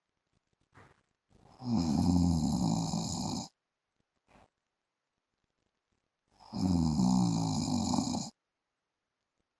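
A man snoring in his sleep: two snores, each about two seconds long and about five seconds apart, with silence between them.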